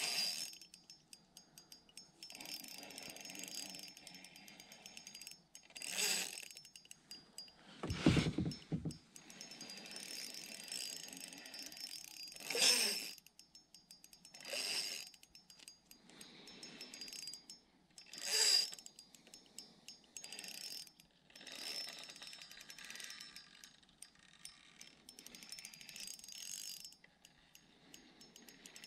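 Fishing reel being cranked to bring in a hooked bass, its gears ticking rapidly in stretches of a few seconds, broken by several short, louder bursts.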